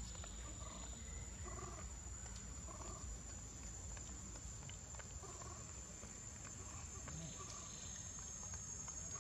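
Quiet outdoor ambience: a steady high-pitched insect drone over a low rumble, with faint soft calls repeating about once a second.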